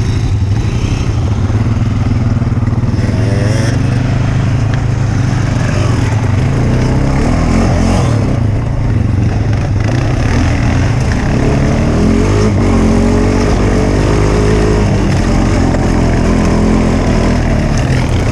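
Honda Rancher 420 ATV engine running under throttle while riding a dirt and gravel trail. Its pitch rises and falls with throttle changes.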